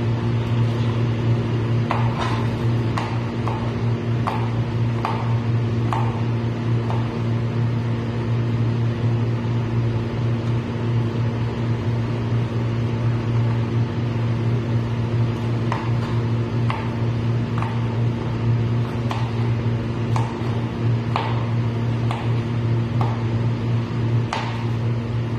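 Kitchen knife chopping yard-long beans on a cutting board, single chops about once a second in two runs, with a pause between them. A steady low hum runs under it all and is the loudest sound.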